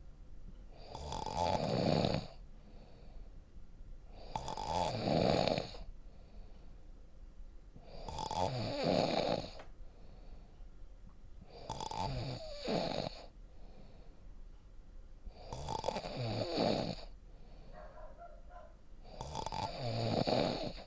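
A person snoring: six snores, one about every three and a half seconds, each lasting about a second, with quiet pauses between.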